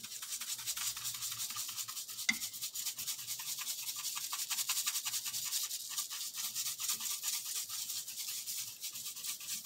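Fast, steady scratchy rubbing as seasoning is worked onto a raw beef roast in a slow cooker's crock, with one sharp click about two seconds in.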